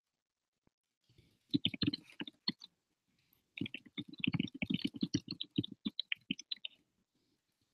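Typing on a computer keyboard: two runs of rapid key clicks, a short one about a second in and a longer, denser one from about three and a half seconds in.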